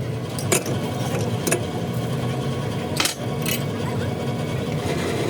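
A machine runs with a steady low hum, while metal parts or tools clink sharply four times, twice in the first second and a half and twice around three seconds in.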